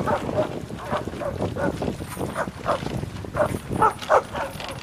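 Sled dogs barking, a quick irregular run of short barks, several a second.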